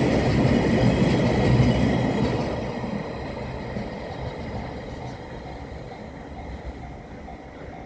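Wheels of a freight train of empty oil tank wagons clattering over the rail joints, loud for about two seconds and then fading away as the train moves off. In the second half a faint, evenly repeating tone sounds, typical of a level-crossing warning bell still ringing.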